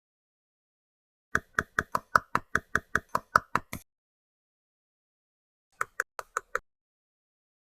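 Quick series of sharp knocks or taps on hard plastic toy pieces, about eleven in a row over two and a half seconds, then a shorter run of five about two seconds later.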